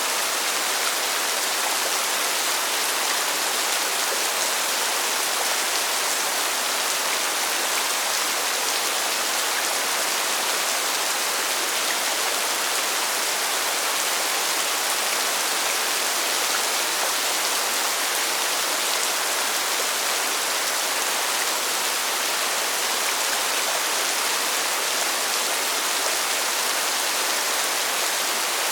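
Steady rain falling, an even hiss that holds without change, with no single drops or thunder standing out.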